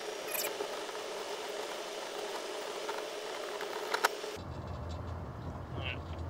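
1999 EZ-GO TXT electric golf cart, running on a 36-volt pack of three 12-volt batteries, driving along at about 13 mph on flat ground: a steady hum over tyre and road noise. A sharp click comes about four seconds in, after which the sound turns to a lower rumble.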